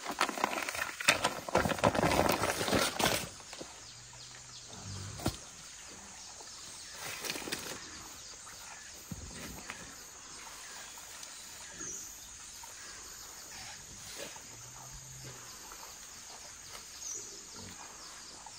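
Plastic nursery bag rustling and dry soil crumbling and scraping under hands as a potted shrub is unwrapped and set into the ground, loudest for the first three seconds, then quieter patting and scraping of earth.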